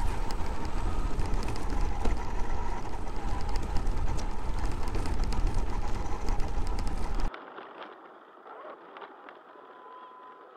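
Onboard sound of a Traxxas X-Maxx RC monster truck driving over gravel: a loud rumble of wind and tyres with many small clicks of stones. It cuts off abruptly about seven seconds in, leaving much quieter sound.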